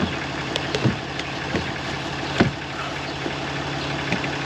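Truck engine idling steadily, with a few sharp clicks and knocks of parts being handled, the loudest about halfway through.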